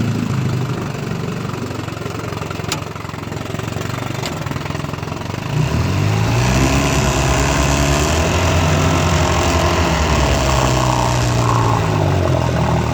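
1958 Johnson FD-12 18 hp two-cylinder two-stroke outboard running throttled down near idle, then picking up and running louder from about halfway through. Two faint ticks come in the first half.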